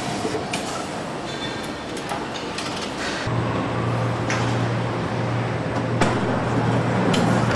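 Car assembly plant floor noise: a steady mechanical hiss with scattered clanks and knocks, and a low steady hum that sets in about three seconds in.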